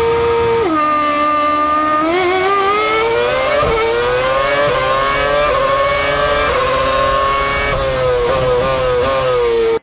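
Ferrari F2012's 2.4-litre V8 Formula 1 engine held steady at high revs on the grid, dipping about a second in as the car launches. It then revs hard up through the gears with quick upshifts. Near the end the revs fall in steps with short blips as it downshifts under braking.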